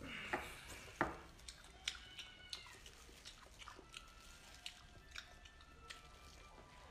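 Close-up eating sounds: biting into and chewing a whole spicy braised squid, with soft wet smacks and mouth clicks, the sharpest about a second in and smaller ones scattered after.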